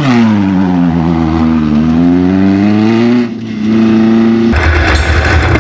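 Off-road race vehicle's engine under way. Its pitch drops, then climbs steadily as it accelerates, breaks off briefly a little after three seconds as if lifting or shifting, then holds a steady note. Near the end a rougher, noisier sound takes over.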